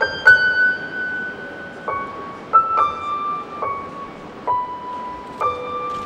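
Background music: a slow, sparse piano melody of single high notes, about eight in all, each struck and left to ring.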